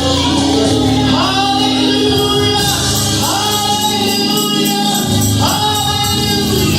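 Gospel music: a choir singing over a band.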